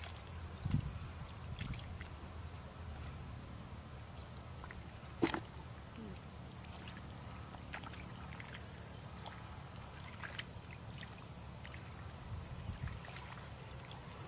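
Hands sloshing and squelching through shallow muddy water while groping for fish, with soft low splashes early on and a single sharp snap about five seconds in. A steady high drone with regular faint chirps runs underneath.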